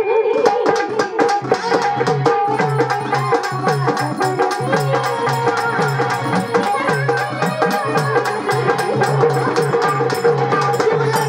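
Instrumental Marathi folk music of the lavni/tamasha kind. A fast hand-drum rhythm with rapid, sharp percussion strikes plays under a sustained melody line, with no singing.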